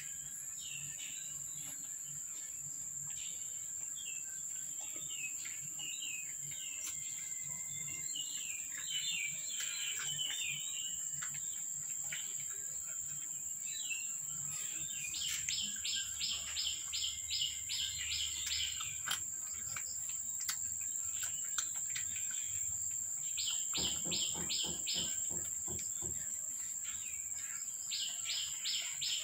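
Songbirds chirping, with several bursts of fast repeated notes: a long one about halfway through, a shorter one near the end, and another just before the end. A steady high-pitched drone runs underneath.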